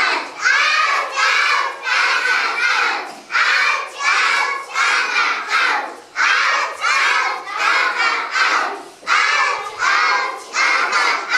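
A class of young children chanting loudly together in unison, short rhythmic shouted phrases coming about two a second.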